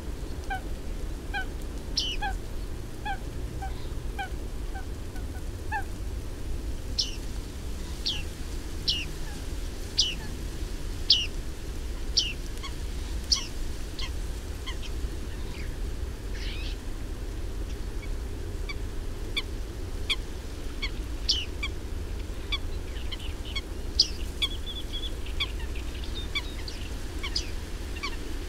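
Bearded reedlings calling: short, sharp, falling ping notes, about one a second and now and then in quick runs, over a steady low rumble. In the first few seconds a lower call repeats about twice a second.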